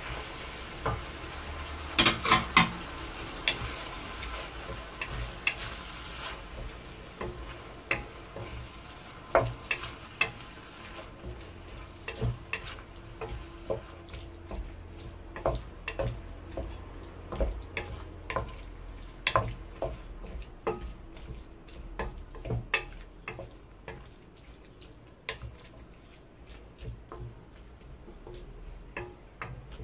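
Wooden spatula stirring and tapping against a speckled enamel frying pan as diced onions and freshly added chopped tomatoes fry with a light sizzle. There are a few loud knocks about two seconds in, and the sizzle fades after about six seconds, leaving mostly the scrape and tap of the spatula.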